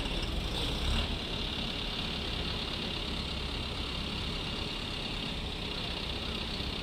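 Mobile crane engines running steadily at low revs under a load-holding lift, a constant low rumble with a steady high hiss over it and a slight swell about a second in.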